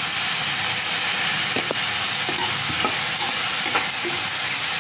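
Sliced potato and radish with greens frying in hot oil in a kadhai, sizzling steadily while being stirred, with a few light knocks of the stirring spoon against the pan.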